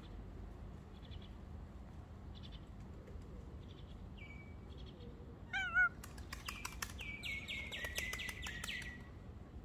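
Birds chirping faintly about once a second, then a single short wavering cat meow about five and a half seconds in, the loudest sound. Right after it comes a bird's fast chattering run of high notes lasting about three seconds.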